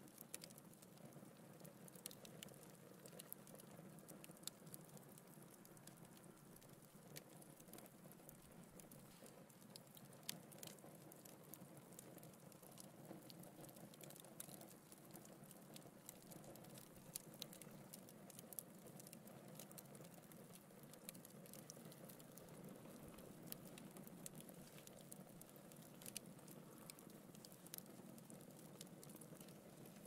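Wood logs burning in a fireplace: faint, frequent crackles and pops over a low, steady rush of the flames.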